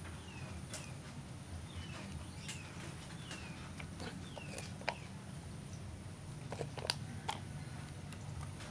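A bird calling with short, falling chirps, about one a second, over a steady low rumble of outdoor background. A few sharp clicks come near the end.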